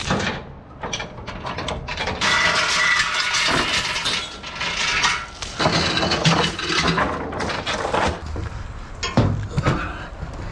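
Steel tie-down chains clanking and rattling against each other and the wooden trailer deck as they are unhooked from a mini excavator, a run of metal clinks that is densest in the middle.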